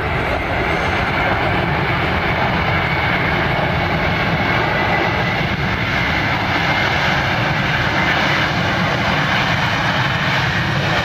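Boeing 747-400 freighter's four jet engines: a loud, steady rush of noise as the jumbo jet rolls along the runway.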